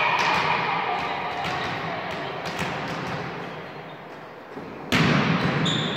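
Echoing sports-hall crowd and player voices dying away, with a few light knocks like a volleyball being bounced. About five seconds in comes a sudden burst of crowd noise, then a short high referee's whistle near the end.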